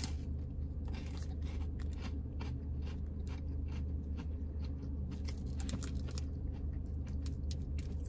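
Biting into and chewing a crispy peanut butter wafer bar: a steady run of small, crisp crunches.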